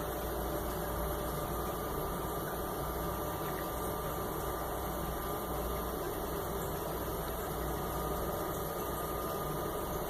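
Steady hum and hiss of background noise, with no clicks or other distinct events.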